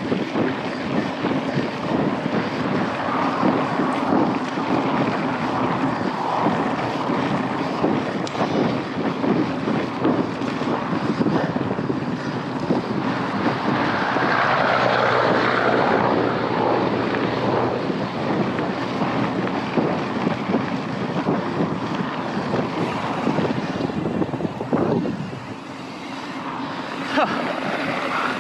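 Wind rushing over the microphone and tyres rolling and rattling over the trail as a mountain bike is ridden fast, with a louder gust about halfway through.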